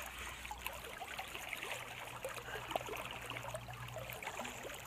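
Swift river current flowing and rippling close by: a steady rush of water with many small trickling splashes.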